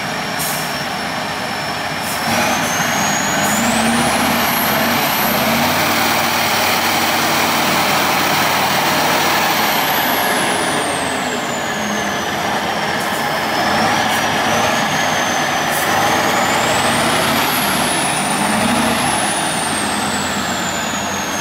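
Tatra 815 6x6 trial truck's diesel engine working hard under load in deep mud, its revs rising and falling. A high whine climbs about two seconds in, holds, falls away, then rises and falls again near the end.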